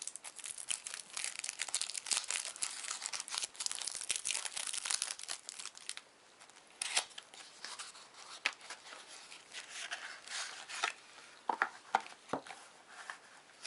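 Trading card starter deck's packaging being torn open by hand: a dense run of tearing and crinkling for about six seconds, then scattered crinkles and sharp clicks.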